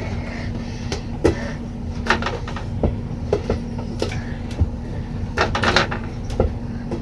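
Light knocks and rattles from a mini basketball hoop hung over closet doors, with a quick cluster of them about five and a half seconds in as a small toy ball strikes the hoop and doors and drops. A steady low hum runs underneath.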